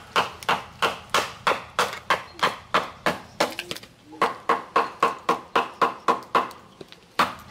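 A short full-tang knife is being batoned through a branch to split it. A baton strikes the blade's spine in quick, even knocks, about four a second.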